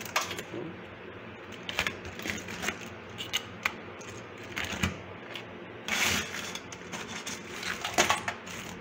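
Hard crab shells clicking and clattering against one another and a stainless steel sink as a hand rummages through a pile of blue swimmer crabs, with louder scrapes about six seconds in and near the end.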